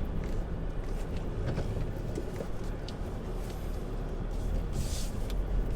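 Steady low road and engine rumble inside the cabin of a moving 2019 Haval H4, with a few faint short clicks and creaks from the body. The door seals are treated and quiet now; the creaks left are ones the owner puts down to the window glass and the sunroof.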